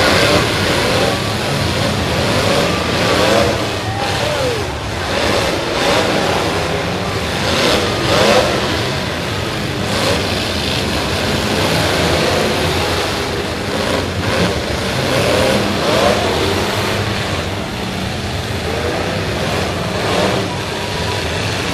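Many stock demolition derby cars' engines revving hard and unevenly together, with repeated sharp crunches of car bodies slamming into each other.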